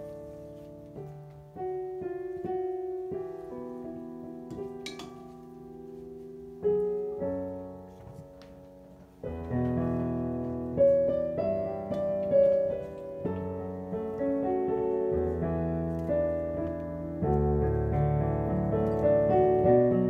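Background piano music, a gentle melody that grows fuller and louder about halfway through.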